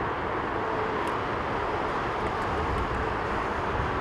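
Steady jet engine noise from a distant Japan Airlines Boeing 787-8 with GEnx engines rolling out on the runway after landing.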